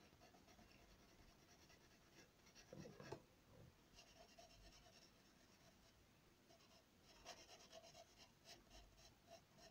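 Faint scratching of a graphite pencil on drawing paper as it shades fur, in runs of quick short strokes with a short pause a little past the middle.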